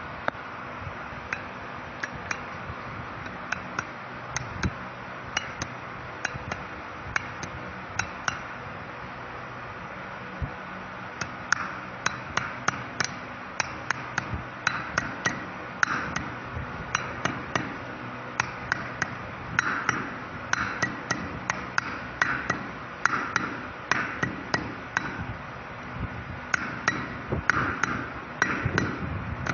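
Hammer tapping on steel gearbox parts: spaced strikes at first, a pause of a few seconds, then quicker, denser strikes.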